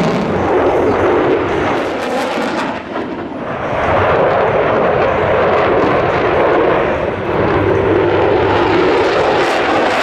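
A Lockheed Martin F-22 Raptor's twin turbofan jet engines, a loud steady roar of a fighter in a display pass; the noise dips briefly about three seconds in, then swells back up.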